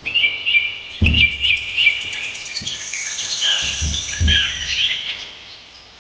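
A flock of small birds chirping and twittering together in dense, overlapping calls, with a few low thuds now and then.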